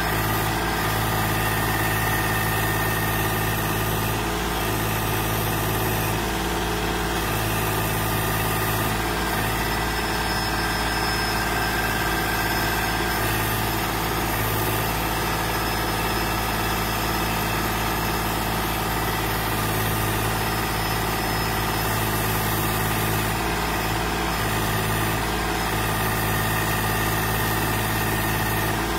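Kubota compact tractor's diesel engine running steadily while its backhoe digs. The low engine note strengthens and eases every few seconds.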